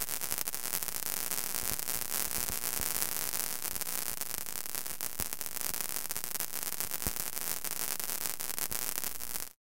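Steady static-like hiss with scattered faint crackles, cutting off suddenly near the end.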